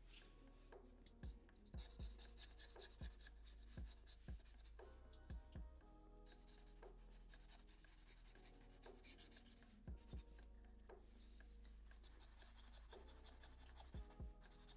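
Felt-tip marker stroking on paper, faint, in short repeated strokes as stripes are drawn in.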